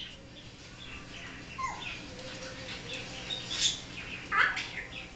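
African grey parrot making a string of short calls and chirps of varying pitch; the loudest call comes about four and a half seconds in.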